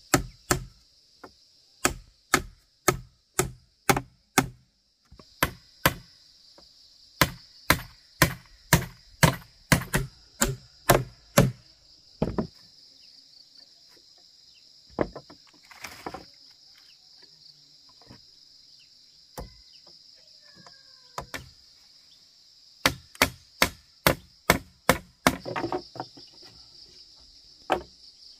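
Hammer driving nails into round wooden poles, in runs of sharp strikes about two a second, with a pause midway and another quick run near the end. Insects drone steadily underneath.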